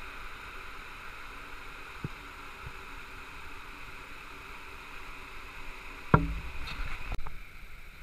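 Steady rushing of a small waterfall pouring into a rocky stream. About six seconds in, a loud knock is followed by a second of uneven low bumps. Near the end the water sound drops away abruptly.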